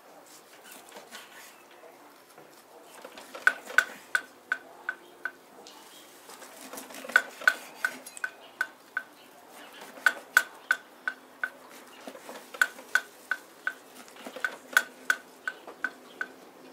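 Kitchen knife slicing a grilled pork steak on a wooden cutting board: five runs of quick, sharp taps, about three a second, each run fading away.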